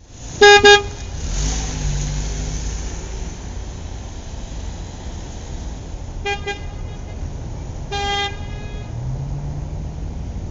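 Car horn honking in short toots: a loud quick double toot about half a second in, another quick double toot just after six seconds, and a single short toot around eight seconds, over a steady low rumble.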